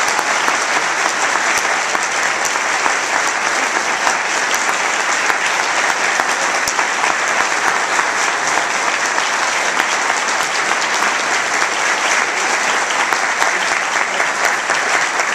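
Audience applauding steadily, welcoming a speaker to the stage. It is a dense, even patter of many hands clapping that holds for the whole span.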